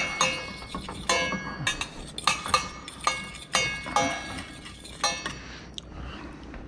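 A fork clinking and scraping against the Instant Pot's stainless steel inner pot while stirring spices into hot oil. The clinks come irregularly, about one a second, each ringing briefly.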